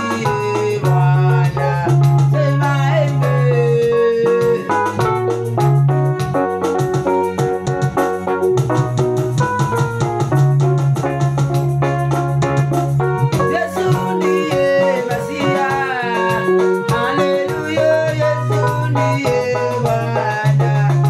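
Upbeat praise music led by an electric keyboard, with a deep, steady bass line and a regular beat.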